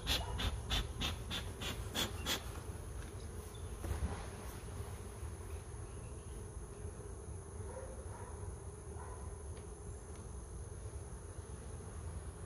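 Honeybees buzzing in a steady hum around an opened beehive. A quick run of sharp clicks or knocks comes in the first two seconds.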